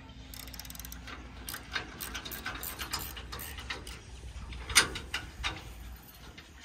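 Metal ratcheting from a hand tool or crank worked at a boat trailer's tongue: a run of quick, irregular clicks, with one sharp, louder click about five seconds in.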